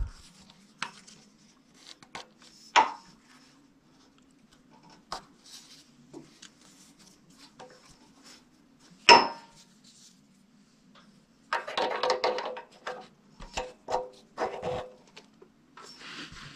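Metal parts clinking and rattling as an aluminium carburetor adapter plate is worked onto threaded mounting posts by hand. There are sharp clinks about 3 and 9 seconds in, and a stretch of rattling and scraping from about 12 to 15 seconds in.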